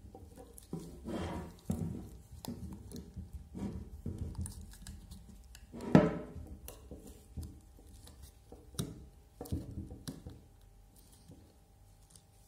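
Metal parts of a Bosch GBH 5/40 DCE rotary hammer being handled and fitted together by gloved hands: scattered small clicks, taps and rubs, with one sharp, loud knock about six seconds in.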